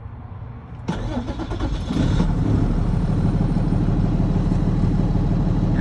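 Cummins ISB six-cylinder diesel cranking about a second in, catching about two seconds in and settling into a steady run. It starts with the No. 6 injector's fuel line blocked off: that injector is leaking internally, and the lost rail pressure was keeping the engine from starting.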